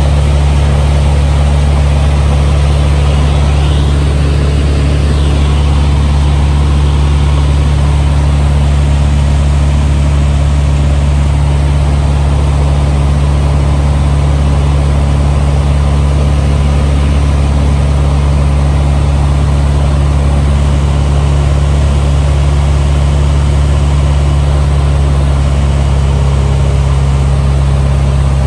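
A Cessna 150's Continental O-200 four-cylinder engine and propeller drone steadily and loudly, heard from inside the cockpit on approach to land.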